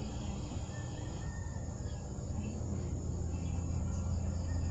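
Outdoor garden ambience: insects chirring steadily, under a low steady drone that grows louder about halfway through.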